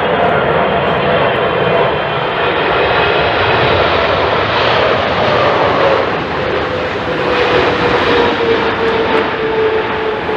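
Jet airliner's engines passing close by: a loud, steady rush with a whine that slowly falls in pitch as it goes past.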